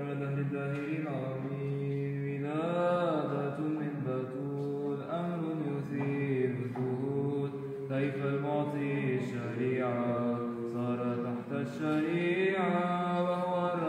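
Byzantine chant in Arabic: a chanter sings a long, melismatic line that glides up and down, over a steady held low drone (the ison).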